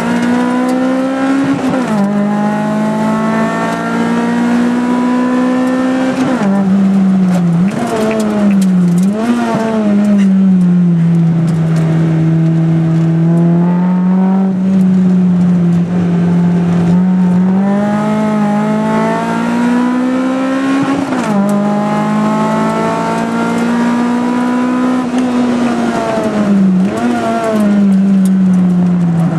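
Tuned Mitsubishi Colt MIVEC engine heard from inside the cabin under hard driving. The revs climb steadily, then fall sharply several times as the car shifts or lifts off for corners, before pulling up again.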